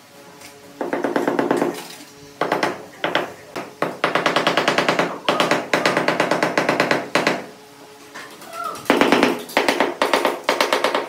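Mallet tapping rapidly on a large ceramic floor tile to bed it into the mortar, in several bursts of quick, even knocks with short pauses between.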